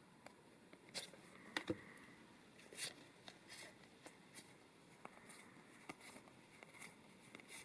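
Faint crinkling and clicks of a foil booster pack and its cards being handled: a dozen or so short, scattered rustles and taps, none sustained.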